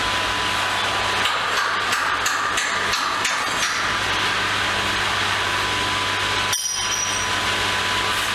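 Wall tiles being demolished: hammer knocks and chipping, several sharp knocks in the first few seconds, over a steady loud mechanical din.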